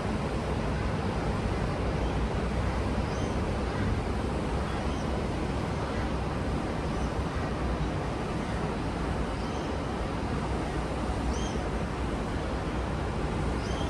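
Steady wash of ocean surf and breeze, an even roar with no breaks, heaviest in the low end. A few faint, short high chirps come through now and then.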